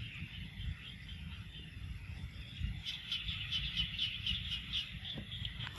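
Outdoor nature ambience with a steady low rumble. About three seconds in, a rapid high-pitched chirping starts, pulsing about five times a second.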